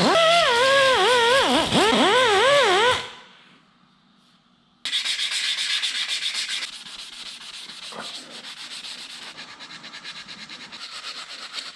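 A handheld rotary sanding tool whines against the motorcycle's metal engine side cover, its pitch dipping and rising rapidly as it is pressed on and eased off. After a short pause, sandpaper is rubbed by hand on the metal in rapid back-and-forth strokes, smoothing out crash scuffs.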